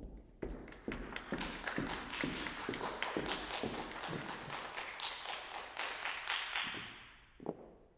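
Small audience applauding, a dense patter of individual claps that starts about half a second in and fades out near the end, with one separate knock just before it ends.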